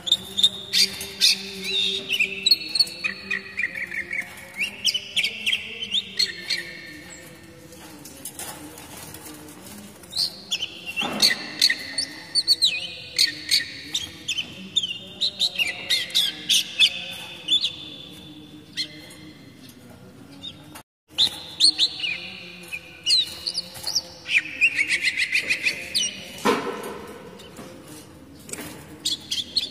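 Oriental magpie-robin (kacer) singing: repeated phrases of clear whistles and chirps, with a brief break about two-thirds of the way through.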